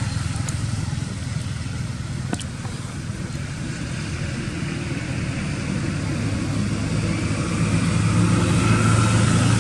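A motor vehicle's engine running steadily, growing louder over the last few seconds, with one short click about two and a half seconds in.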